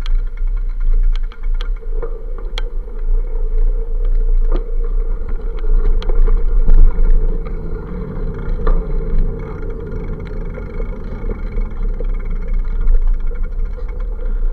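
Street traffic on a busy avenue heard through a bicycle-mounted camera, under a steady low rumble of wind and riding vibration. Scattered sharp clicks and rattles come through, most of them in the first few seconds.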